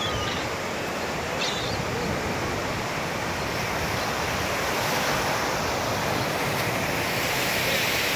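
Ocean surf breaking and water rushing at a river mouth, steady and a little louder near the end, with wind buffeting the microphone. A few brief gull calls sound in the first two seconds.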